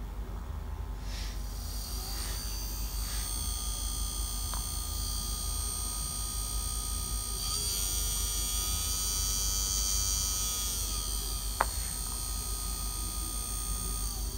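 Brushed DC motor with a drill bit in its shaft, running freely with a steady whine. Its pitch rises about two seconds in, climbs again about halfway through and drops back a few seconds later as the motor speeds up and slows. There is a sharp click near the end.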